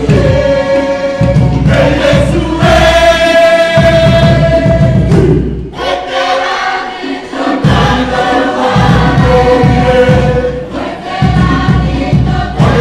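Many voices singing together in chorus as a dance song, over a dense low beat that drops out for about two seconds in the middle and then comes back.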